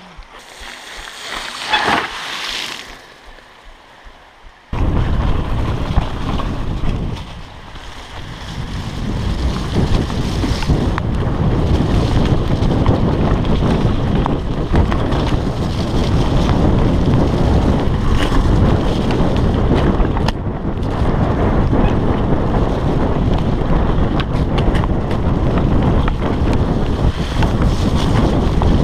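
Wind buffeting a chest-mounted GoPro's microphone while a mountain bike is ridden, coming in suddenly about five seconds in and staying loud and steady.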